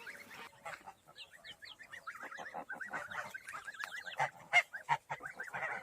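Young poultry, goslings and chicks, peeping in a steady stream of short, falling high calls. A few louder goose calls stand out around four and a half seconds in.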